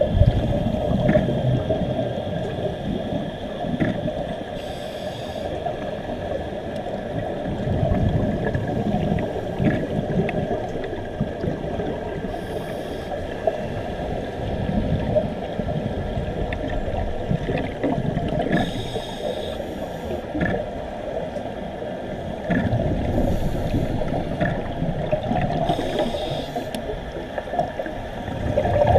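Muffled underwater sound of scuba divers' regulators and exhaled bubbles, heard through a camera housing: a low gurgling rumble that swells every few seconds, with brief hissy bursts and a faint steady whine.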